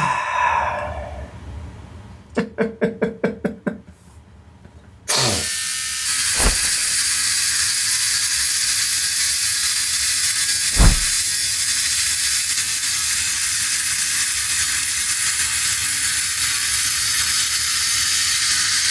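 Electric beard trimmer switched on about five seconds in, running steadily as it cuts through a full beard, with a couple of short knocks along the way.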